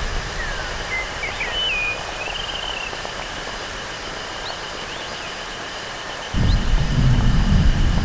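Synthesized rainforest ambience, made with Serum and Phase Plant synths sequenced in Midinous: a steady rain-like hiss with rows of pulsing insect-like tones, short bird-like chirps and a warbling call about two seconds in. A low thunder-like rumble comes back suddenly about six seconds in.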